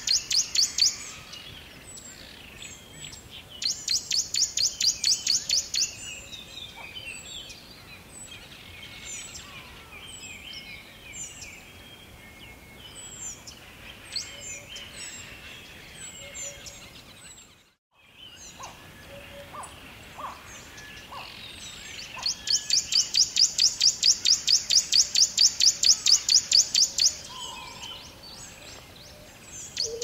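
Forest birdsong ambience: many birds chirping with short, high, downward-sliding calls, over a faint background hiss. A loud, rhythmic pulsing call of about five pulses a second comes in stretches of a few seconds, and the whole sound cuts out for a moment a little past the middle.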